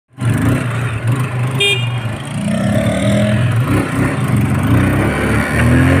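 Small motorcycle engine running steadily, with one short high toot about a second and a half in.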